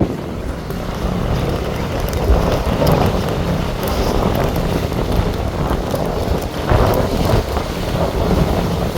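Gusty storm wind buffeting the microphone, a loud rumbling rush that swells and eases in gusts.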